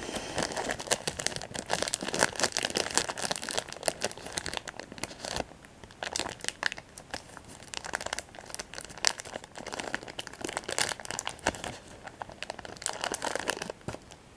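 A Kit Kat's plastic wrapper crinkling and crackling as it is handled and opened close to the microphone, with a brief lull about five and a half seconds in.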